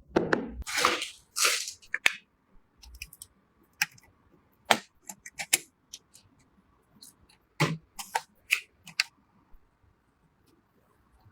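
Computer parts and their packaging being handled: a few short rustling swishes, then scattered sharp clicks and taps, quiet near the end.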